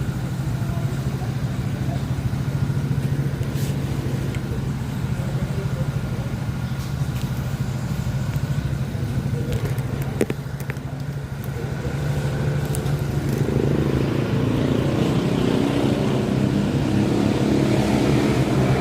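A vehicle engine running steadily, growing louder about two-thirds of the way through, with a few light clicks.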